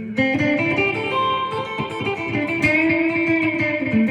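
Electric guitar, a Gibson Les Paul through a Marshall amp, playing a quick run of picked notes through an Electro-Harmonix #1 Echo digital delay pedal. The blend is turned down, so the echoes trail off quietly behind the main notes, which stay pronounced.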